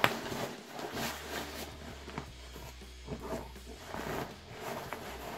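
Fabric compression sack of a sleeping bag being handled and opened by hand: soft, irregular rustling and scratching of the cloth.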